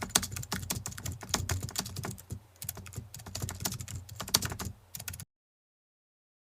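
Rapid, irregular computer keyboard typing clicks that stop abruptly about five seconds in.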